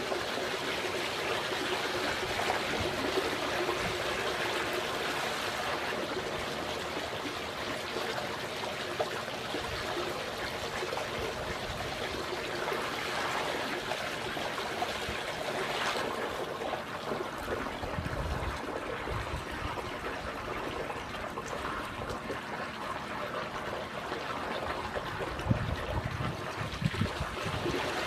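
Swimming pool water trickling steadily, with a few low bumps in the second half and near the end.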